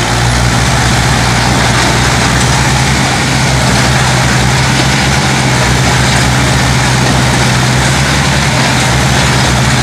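Mahindra 275 DI tractor's diesel engine running loud and steady, with an even low drone, while hitched to another tractor and pulling against it.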